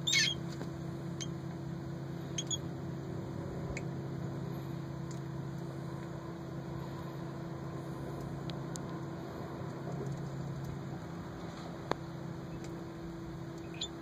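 A steady low mechanical hum, like a motor running, with one short, loud, high-pitched call right at the start and a few faint brief chirps later on.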